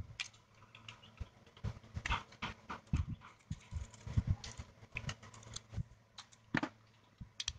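Irregular small clicks, taps and scrapes of a screwdriver and prying tool working the plastic casing of a Samsung GT-E1195 flip phone loose.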